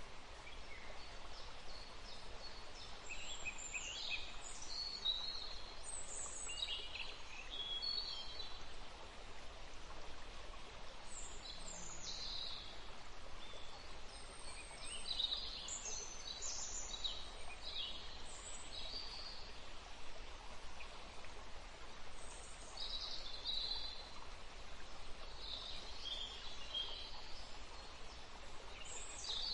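Birds chirping and calling in short bursts, on and off, over a steady outdoor hiss.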